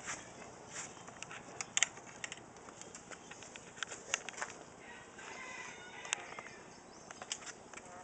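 Faint calls of penned birds, clearest about five seconds in, among scattered sharp clicks and rustles.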